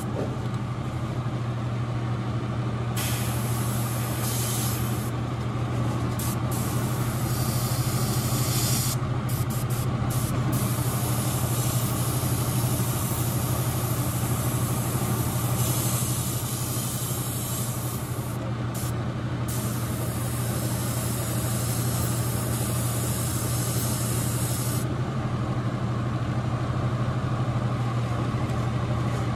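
Gravity-feed airbrush spraying paint, a hiss that starts and stops in stretches of several seconds as the trigger is worked, over the steady low hum of the spray booth's exhaust fan.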